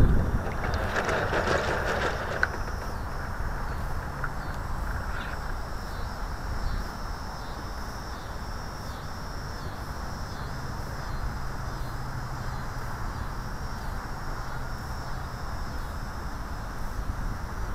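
Water rushing and lapping along the hull of a Santa Barbara-class RC model sailboat under sail, heard from a camera on its deck, with a louder splash about a second in.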